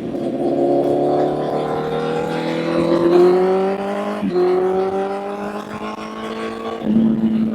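Honda CBR1000 inline-four engine pulling hard under acceleration, its pitch rising steadily, dropping sharply at a gear change about four seconds in, then rising again, with another shift near the end.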